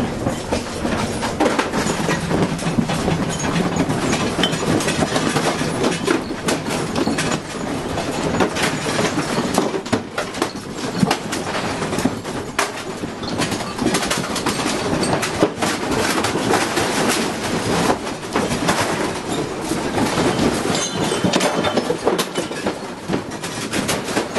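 A house shaking in a strong earthquake: a continuous dense rattling and clattering of walls, fittings and loose objects, with many sharp knocks through it.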